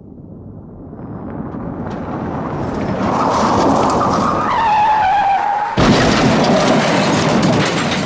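Car crash sound effect: a car's noise swells as it approaches, then tyres squeal in a falling screech about four and a half seconds in. Just before six seconds a sudden loud impact cuts the squeal off, and noisy clatter from the wreck follows.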